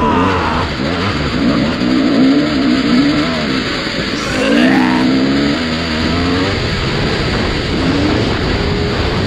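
Dirt bike engine revving up and down over and over while riding, with a steady rush of noise underneath. A sharper rising rev comes about four to five seconds in.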